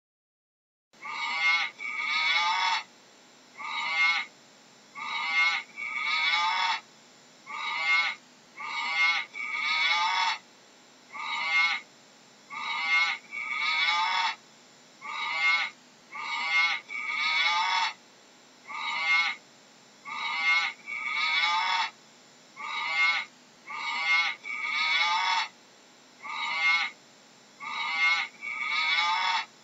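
A long series of short, high-pitched animal calls, starting about a second in and repeating about once a second, often two in quick succession.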